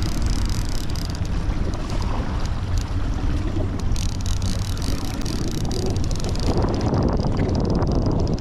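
Steady low rumble of a boat running at trolling speed, mixed with wind buffeting the microphone.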